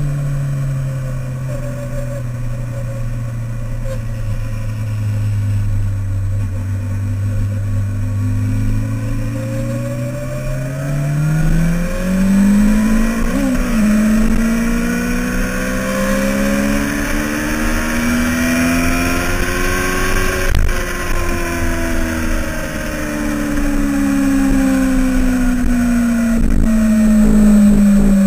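Motorcycle engine heard from on board: it runs low for the first several seconds, then climbs steadily in pitch under acceleration for about ten seconds, peaks about two-thirds of the way through, and eases gradually down.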